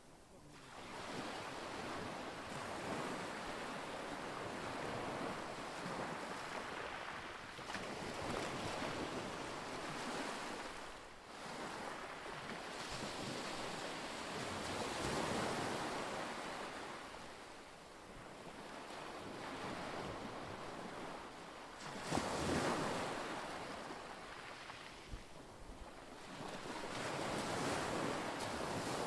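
Lake waves washing in surges every few seconds, each swell of rushing noise rising and falling away, with wind; the biggest surge comes about three-quarters of the way through.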